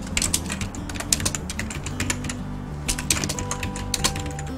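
Typing on a computer keyboard: quick runs of keystrokes with short pauses between them, over background music with sustained low notes.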